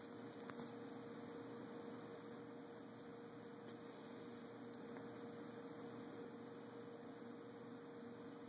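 Faint steady electrical hum over low hiss, with a few faint clicks; no sound from the puppy.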